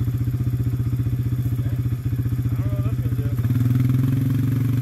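ATV engine idling with a fast, even throb, then revving up and pulling steadily under load about three and a half seconds in as the quad drags a log free on a chain.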